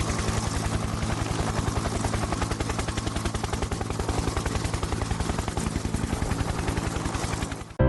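A fast, even mechanical pulsing, about ten beats a second, over a steady low hum; it cuts off suddenly just before the end.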